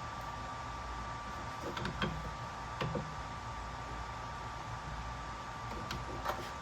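A few light clicks and knocks of parts and tools being handled while taking a paper cutter apart, in pairs about 2, 3 and 6 seconds in, over a steady hiss with a faint high hum.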